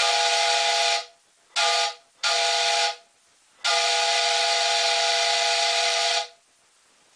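Homemade train whistle blown by compressed air, sounding four blasts: one of about a second, a short one, a slightly longer one, then a long blast of about two and a half seconds. Each blast is a steady chord of several tones over air hiss, and it starts and stops abruptly.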